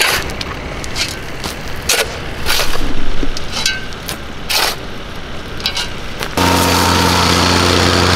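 Irregular knocks and scrapes, then about six seconds in an engine cuts in suddenly, running steadily at an even pitch.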